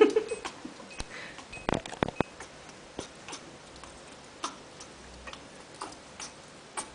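African grey parrot making irregular sharp clicks and taps, a few each second, with the loudest cluster about two seconds in.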